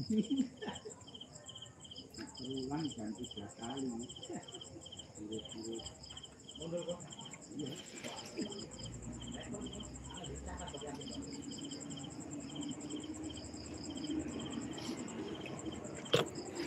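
Crickets chirping in a steady, even rhythm, about three chirps a second, with faint talking in the background.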